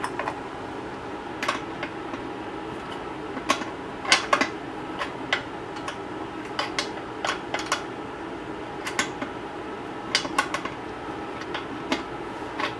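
A hand wrench clinking on nuts and bolts while tightening hardware: irregular sharp metal clicks, a few close together about four seconds in and again near ten seconds, over a steady low hum.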